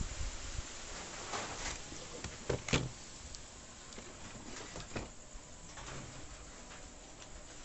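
A few light knocks and clicks as a CRT television's circuit board is handled and tilted; the sharpest comes a little under three seconds in.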